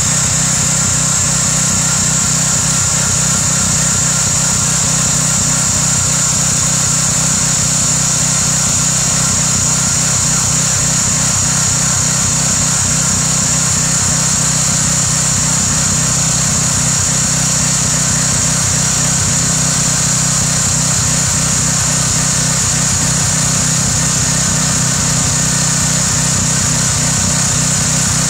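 A 3100 PSI pressure washer's small engine running steadily, with the hiss of its zero-tip water jet cutting a trench into wet soil.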